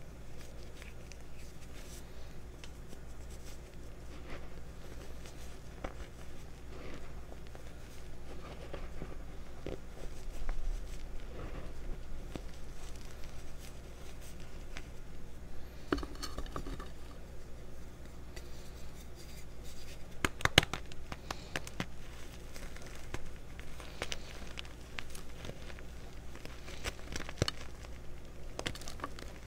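Hands crushing and digging through powdered gym chalk and reformed chalk chunks: soft crumbling and gritty crunches, with a few sharper cracks about halfway through and again a few seconds later. A low steady hum runs underneath.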